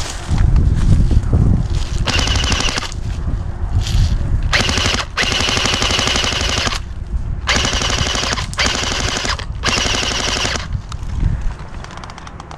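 Airsoft guns firing on full auto: about six bursts of rapid clicking shots, each a fraction of a second to a second and a half long.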